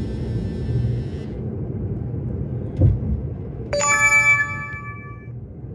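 Steady low rumble of road and engine noise inside a moving car's cabin. A thump comes about three seconds in, then a bright ringing tone of several pitches at once starts suddenly and fades over about a second and a half.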